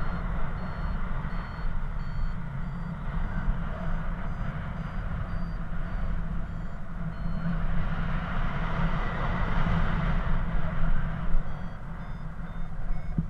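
Paraglider variometer beeping in short high tones, about two a second, the pitch stepping up and down; the beeping signals that the glider is climbing in rising air. Underneath, wind rushes steadily over the microphone and swells louder in the second half.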